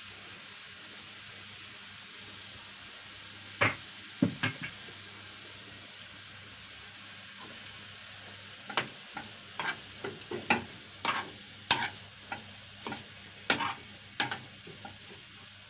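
Minced kefta meat with grated tomato and onion being mixed and pressed in a frying pan: wet, squelching strokes against the pan, a few about four seconds in, then coming quicker from about nine seconds in, over a steady low hiss.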